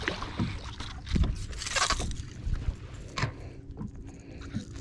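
Hooked largemouth bass splashing at the surface beside the boat as it is reeled in and lifted aboard. There are several short splashes and knocks, the loudest a little under two seconds in, over a low steady rumble of wind and water.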